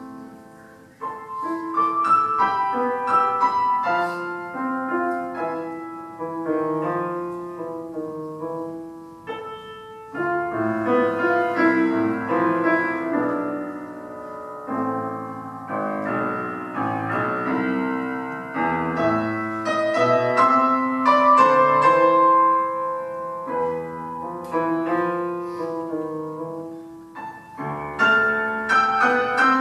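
Solo piano playing a composed piece in phrases that swell and ebb every few seconds, with brief quieter gaps between them.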